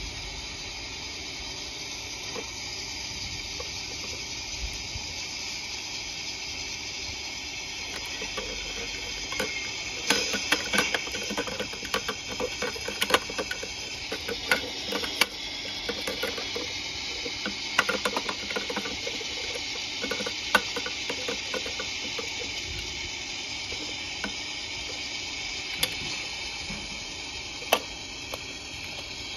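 Light plastic clicks and rattles as a small yellow plastic wheelie bin is tipped and shaken on the rear lifter of a toy garbage truck, emptying paper trash into the hopper. They come in busy clusters through the middle, with a couple of single sharp clicks near the end, over a steady hiss.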